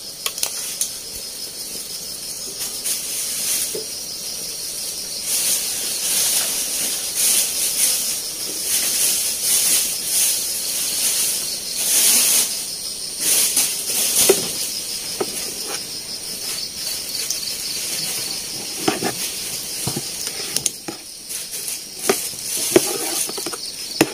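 Steady high-pitched hiss with a fine, even pulsing to it, and scattered light clicks and knocks.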